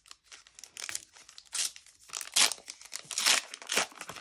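Panini Euro 2020 trading-card booster pack being torn open, its wrapper crinkling and tearing in a run of irregular crackles that grow louder in the second half.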